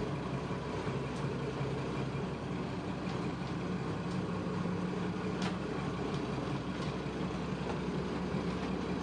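Steady low drone of the boat's twin Perkins diesel engines idling, heard from inside the cabin, with a few faint clicks.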